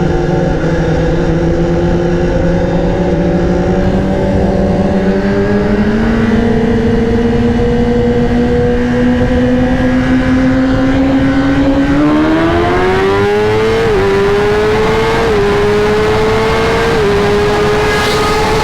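Sport-bike engine pulling hard at high revs in a roll race, its pitch climbing steadily and then faster, with three quick drops in pitch in the last few seconds as it shifts up.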